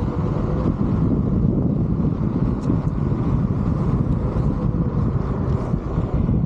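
Wind rushing over the camera microphone during a ride on a Onewheel GT electric board, over the rolling rumble of its tire and a faint steady whine from its hub motor.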